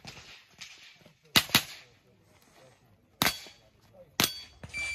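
A .22 rimfire mini rifle firing during a practical shooting stage: a fast double tap, then two single shots about a second apart, each a short sharp crack. A short steady electronic beep, like a shot timer, starts near the end.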